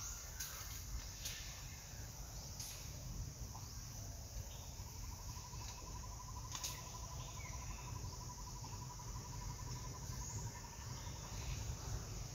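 Forest ambience: a steady, high insect drone. About five seconds in, a rapid, even trill at a lower pitch starts up, runs for about six seconds and stops. A few faint clicks.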